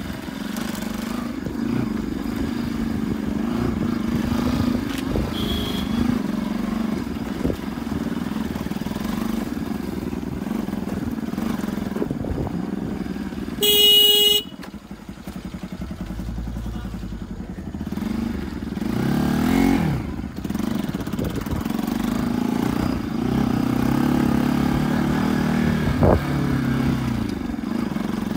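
Bajaj Pulsar NS200's single-cylinder engine running under way, with wind buffeting the microphone. About halfway through, a short loud horn blast is the loudest sound. A little later the engine revs rise twice.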